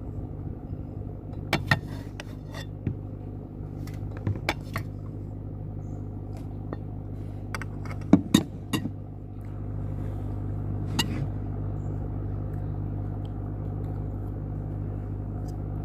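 Scattered clinks and taps of dishes and cutlery as food is handled, over a steady low hum that gets louder about nine seconds in.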